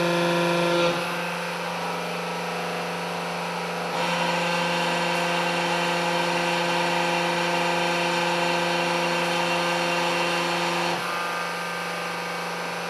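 Electric motor and hydraulic pump of a JKL500 hose crimping machine running with a steady hum. The sound drops about a second in, comes back up about four seconds in, and drops again near the end.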